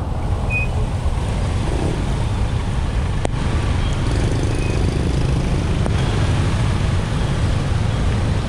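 Steady low rumble of motor traffic and vehicle noise, with a single sharp click about three seconds in.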